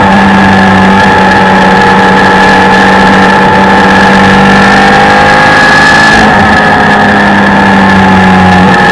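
Suzuki Hayabusa inline-four motorcycle engine in a race car, running loud at steady revs through a corner, heard onboard. A hiss of wind over the microphone drops away about six seconds in.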